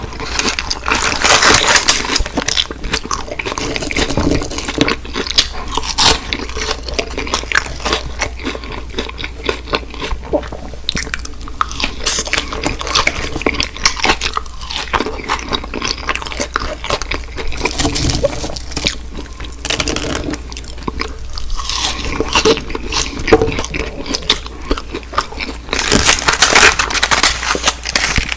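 Close-miked mouth sounds of a person eating: continuous crunching, biting and chewing, louder about a second in and again near the end.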